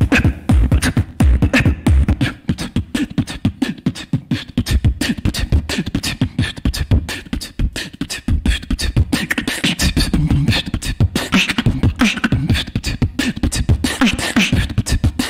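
Solo human beatboxing into a studio microphone: a fast, unbroken stream of mouth-made kick, snare and hi-hat sounds over a deep bass line.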